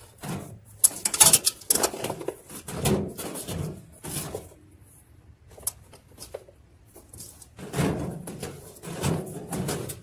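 Plastic wash tub of a Frigidaire top-load washer being twisted and worked up its transmission shaft, knocking and scraping in irregular bursts with a quieter lull in the middle; the tub sticks because the shaft is rusty.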